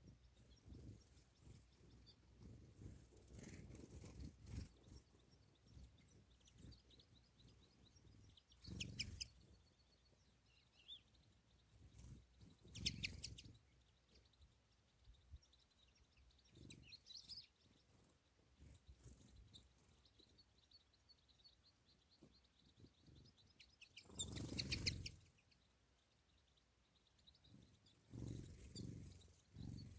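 Faint, scattered chirping and twittering of small songbirds, broken by several brief low rumbles, the loudest about 25 seconds in.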